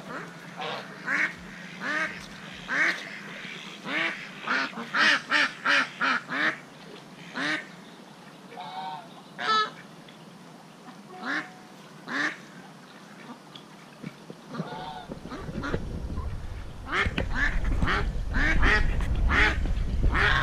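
Ducks quacking, many short calls in quick runs, some overlapping. A low rumbling noise comes in about fifteen seconds in and stays under the calls.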